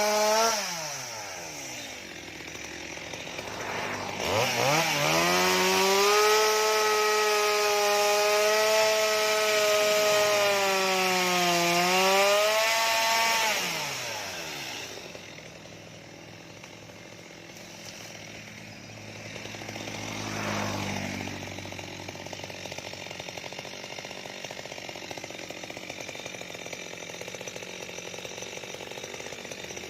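Stihl MS 230 two-stroke chainsaw running. It is at high revs at first and drops to idle, then is revved up again about four seconds in and held high, sagging slightly, for about eight seconds. It then falls back to idle, with one short rev near the twenty-second mark.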